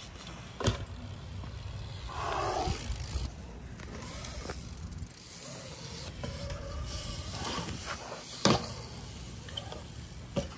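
BMX bike riding on a concrete skatepark bowl: tyres rolling on the concrete, with sharp knocks of the bike landing about a second in and again about eight and a half seconds in.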